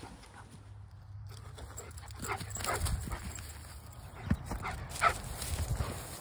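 A dog making a few brief vocal sounds while play-pouncing in dry grass, with a sharp thump a little after four seconds in.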